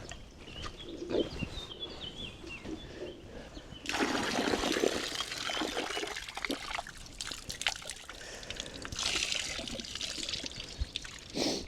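Stream water sloshing and splashing around legs wading through it, getting louder about four seconds in and carrying on unevenly. A small bird chirps faintly in the first couple of seconds.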